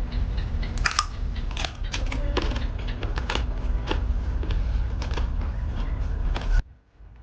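Close-miked eating: chewing and mouth sounds with many short sharp clicks and crackles over a steady low hum. It cuts off abruptly near the end.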